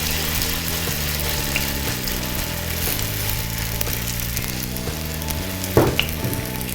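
Grated potato pancake batter sizzling as it fries in hot oil in a pan, a steady hiss with two light knocks about six seconds in.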